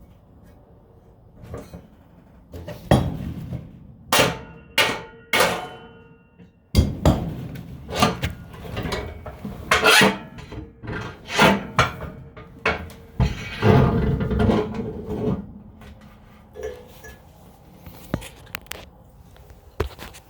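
Hammer blows on steel, knocking a mower deck spindle shaft out of its housing past a stuck bearing. The strikes ring out metallically: a few single blows, then a long run of irregular hits that tails off into lighter knocks.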